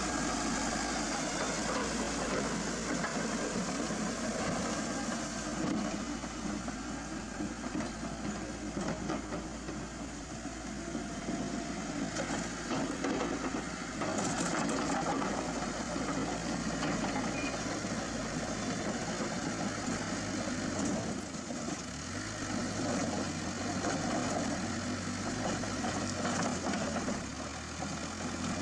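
Heavy diesel engine running steadily, with its low note shifting a couple of times as it changes speed.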